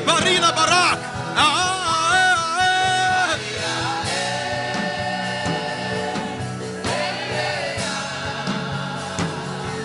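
Gospel worship music: a solo voice sings wavering, ornamented phrases, then from about four seconds in the sound settles into long held chords with sustained voices.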